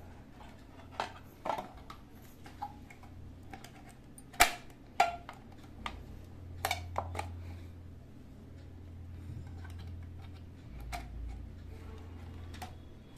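Scattered sharp plastic clicks and knocks from handling an automatic perfume dispenser's plastic housing and fitting a battery into it, the loudest about four and a half seconds in. A steady low hum runs underneath.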